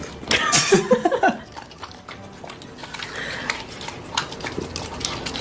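A dog vocalising: a brief run of whining, wavering yowls about half a second in, followed by quieter clicks and shuffling.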